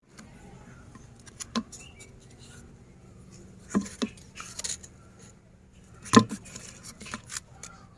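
Hard colourful cookies clicking and crackling as they are handled, a few sharp cracks over a faint steady hum, the loudest about six seconds in.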